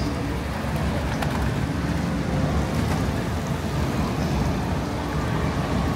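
Steady city street noise in the rain: road traffic and falling rain mixed into one even din, strongest in the low range.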